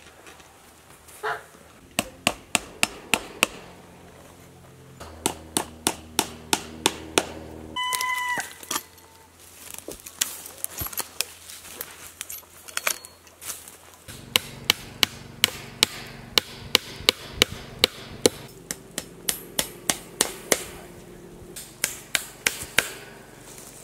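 Hammer driving fencing staples into wooden posts to fasten welded wire fencing: runs of sharp strikes, about three a second, with pauses between runs. A short high call sounds once about eight seconds in.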